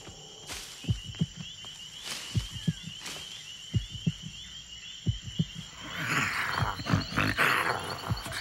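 Animated night-jungle ambience: a steady chorus of frogs and insects chirring, with low, irregular drum-like thumps. About six seconds in, louder rasping bursts join: a cheetah's snarling breaths.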